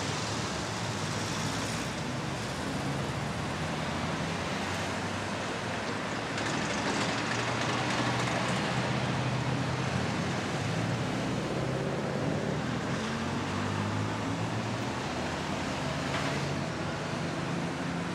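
Steady street traffic: a continuous hum of passing cars and engines, growing louder for a few seconds in the middle.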